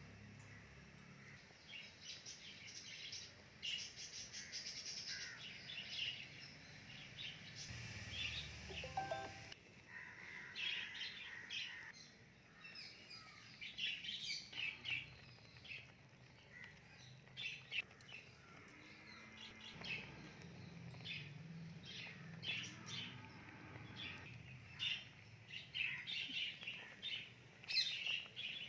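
Wild birds chirping and calling: many short, high chirps, some in quick runs, scattered through the whole stretch over a faint low background hiss.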